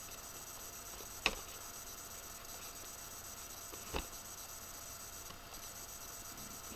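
Scissors snipping at packaging tape on a cardboard box: two sharp clicks about three seconds apart, over a faint steady hiss.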